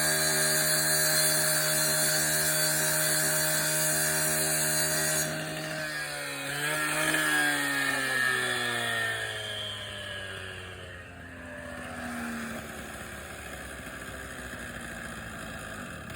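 Two-stroke gas cut-off saw (quickie saw) with a diamond blade running steadily at high speed off the cut. About five seconds in the throttle is released and the engine's pitch falls as it winds down toward idle.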